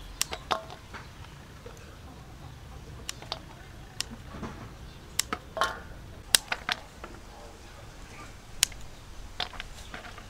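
Fresh green peppercorn clusters being cut from their stems with a knife and handled in an aluminium bowl: irregular sharp clicks and taps.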